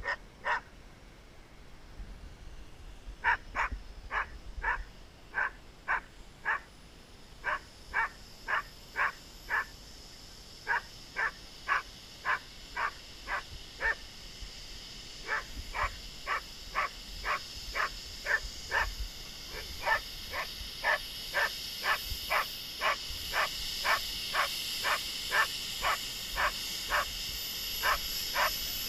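A dog barking in long runs, about two barks a second, with short pauses between runs. Through the second half a hiss with a thin high whine grows louder, from the model jet's turbine as the jet comes in on the grass.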